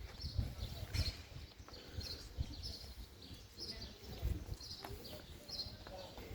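Footsteps of a person walking on a hard path, irregular low thumps about once or twice a second. Faint short high chirps come and go over them.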